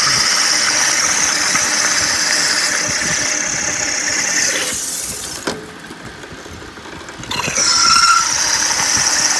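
Large twist drill in a milling machine cutting through a thick metal shaft, giving a steady high-pitched squeal under heavy feed. The squeal stops about four and a half seconds in and starts again about three seconds later.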